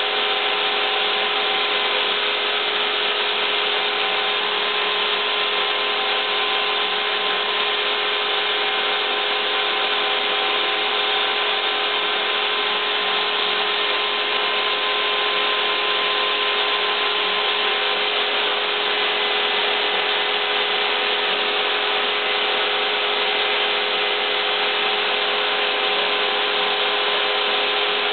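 Home-built CNC router running steadily on a test run: the router motor's continuous whine with several steady tones, unbroken throughout.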